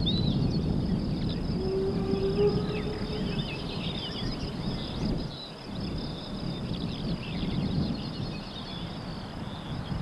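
Outdoor meadow ambience: wind rumbling on the microphone in gusts, easing briefly about five seconds in, under many small songbirds chirping and trilling and a steady high-pitched hiss. A short low hum passes about two seconds in.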